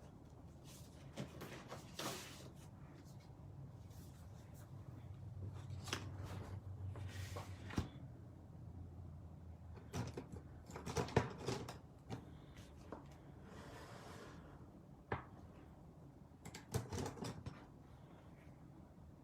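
Handling sounds as a sheet of cardstock is fetched from storage: scattered clicks and knocks, the loudest about eleven seconds in, with a few short paper rustles and a faint low hum in the middle.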